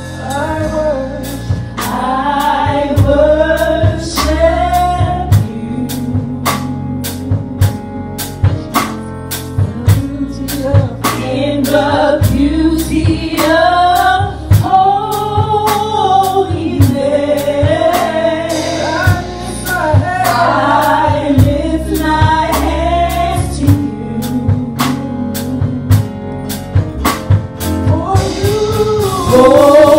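Live gospel worship music: women singing a praise song into microphones, with a drum kit keeping a steady beat under low bass notes.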